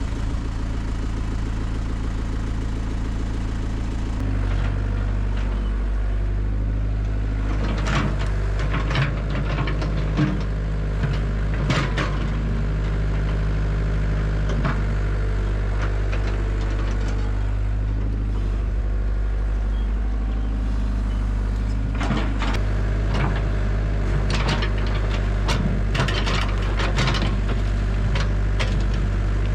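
Cat 307SSR mini excavator's diesel engine running steadily, stepping up in speed about four seconds in. Scattered clanks and scrapes of the bucket working the ground come in two spells, the first around a third of the way in and the second near the end.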